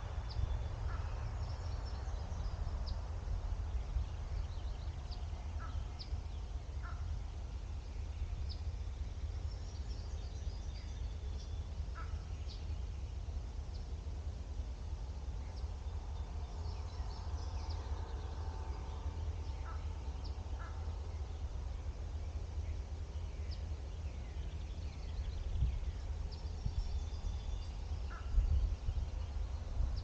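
Countryside outdoor ambience: a steady low rumble under scattered short bird chirps and calls.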